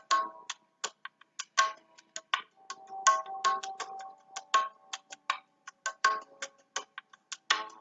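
Background music of irregular light strikes, about two to three a second, each with a short ringing note at a few fixed pitches.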